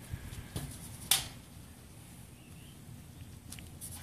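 A few light clicks and taps of nipple cups being handled in a diesel high-pressure oil rail, the sharpest about a second in and two faint ones near the end.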